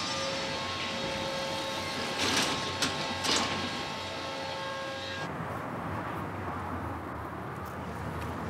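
Metro train standing at an underground platform, its electrical equipment giving a steady hum with several fixed whining tones over station noise, with two short louder sounds about two and three seconds in. About five seconds in it cuts to a quieter, plainer outdoor background.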